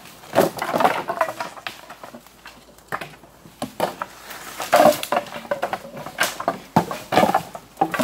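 Cut branches and brushwood cracking and knocking at irregular intervals, with the chops of an axe among them.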